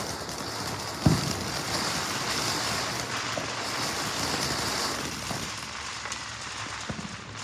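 Red Hot ground fountain firework spraying sparks with a steady hissing crackle, and a sharp bang about a second in. The spray dies down after about five seconds, leaving faint pops.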